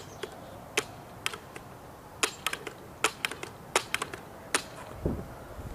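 A series of about a dozen sharp, irregular clicks and small taps from handling the air rifle as it is readied to shoot, with a short low rumble near the end.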